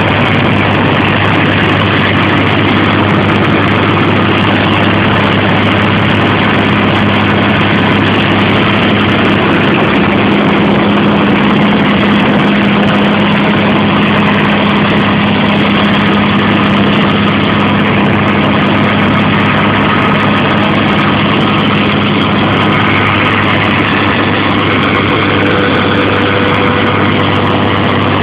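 Tractor engine running steadily under load, driving a Tozamet FG-650B soil stabilizer as it works the ground, with a constant low hum.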